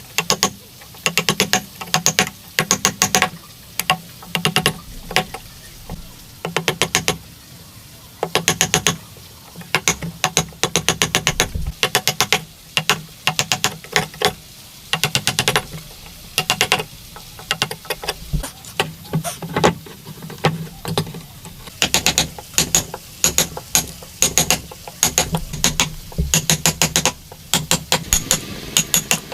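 Hand-tool work on wood: repeated bursts of quick, sharp clicks, several strokes to a burst, coming over and over.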